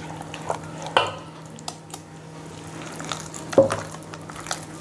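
Palm-fruit pulp being scraped from a steel bowl into a steel pot and squished into the batter by hand, with wet squelching and sharp clinks of metal on metal, the loudest about a second in and again about three and a half seconds in.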